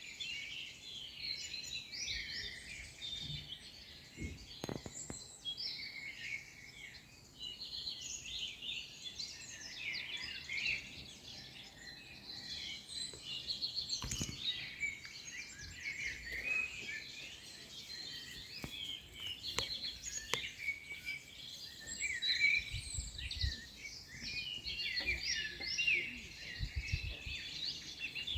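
Many small birds chirping and singing at once in a dense, continuous chorus, with scattered low thumps, more frequent near the end.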